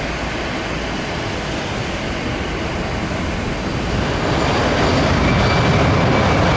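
Jet airliner engines heard across an airfield: a steady rushing roar that grows louder about four seconds in.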